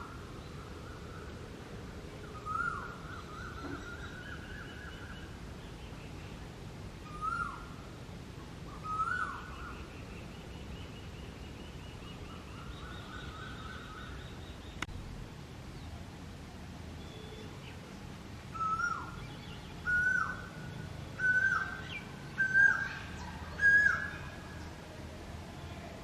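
Asian koel singing: single whistled calls, each ending in a quick drop in pitch, spaced several seconds apart at first. Near the end comes a run of five calls that climb in pitch and grow louder. Fainter high chirps sound in the background.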